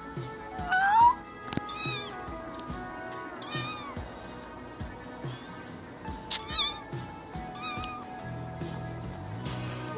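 Ginger tabby kitten meowing repeatedly in short, high calls, the loudest about two-thirds of the way through, over background music with a steady beat.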